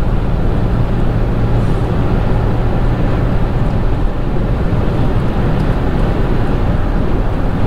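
Steady low rumble of a vehicle on the move, engine and road noise heard from inside the cabin.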